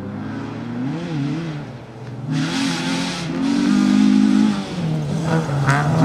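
Peugeot 106 rally car's engine revving up and down as it slides through a gravel corner. From about two seconds in, a loud hiss of tyres spraying gravel and dirt runs over the engine.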